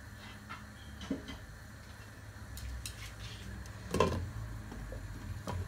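Glass lid set onto a metal cooking pot: a sharp clink of the lid on the pot's rim about four seconds in, and a second clink near the end as it settles.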